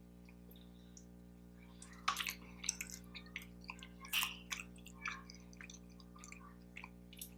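Close-miked wet mouth sounds of eating: a quick run of smacking, clicking chews starting about two seconds in and easing off after a few seconds, over a faint steady hum.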